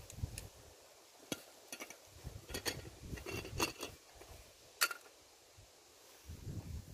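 Metal camping cookware clinking and scraping as a small camp stove, pot and lid are handled and set down, in a series of light knocks, the sharpest about five seconds in.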